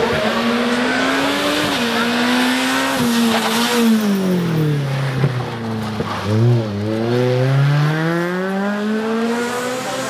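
Ford Fiesta rally car engine at full effort. Its note drops as the car slows for the corner around five seconds in, then climbs steadily as it accelerates away, with some tyre squeal.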